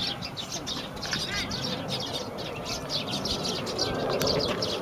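Small birds chirping continuously, a dense run of short high chirps several times a second, with a single thud right at the start.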